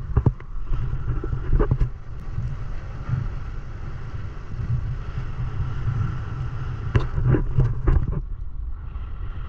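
Speedboat engine running with a steady low rumble, with wind noise and a few short knocks, a cluster about two seconds in and another around seven to eight seconds.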